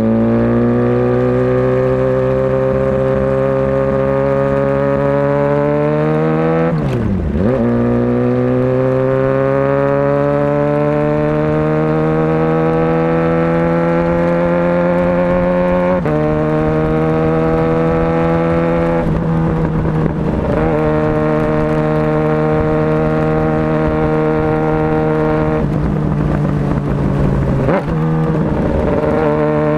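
Motorcycle engine running under way, its pitch slowly rising as it pulls, with a sharp drop and quick recovery about seven seconds in, like a gear change. The pitch steps slightly later on, and bursts of rushing noise come in near the middle and toward the end.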